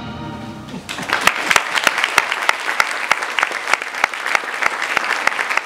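Orchestral music dies away in the first second, then an audience applauds, many separate claps standing out sharply.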